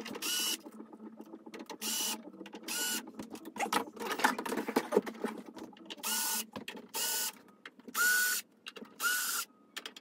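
Cordless drill backing out small fine-thread screws in short bursts, about seven times, each a brief whine that rises as the motor spins up. A stretch of rattling and clicking comes between the third and fourth bursts, about midway.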